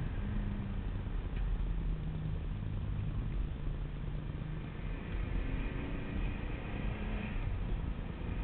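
Tommykaira-tuned Nissan Skyline running at speed, its engine note stepping up and down in pitch over a heavy, steady rumble of wind and road noise.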